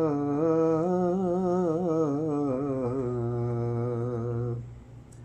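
A male voice sings one long, wavering melismatic phrase of an Urdu naat over a steady low tone, ending about four and a half seconds in.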